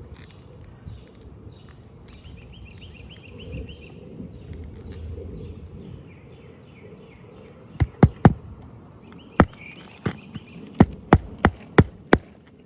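Hammer driving new roofing nails into a replacement three-tab asphalt shingle: about ten sharp blows in quick groups through the second half. Before them, faint quick chirping.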